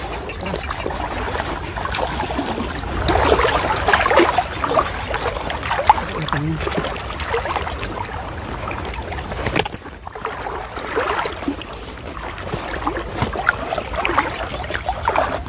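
Water sloshing and splashing irregularly as people wade waist-deep through muddy floodwater.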